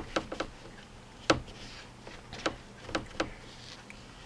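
Scattered light clicks and taps, the sharpest about a second in, with a brief soft rubbing just after it: handling sounds of a folded paper towel being pressed and smoothed over a wet water-slide decal on a plastic motorcycle fairing panel.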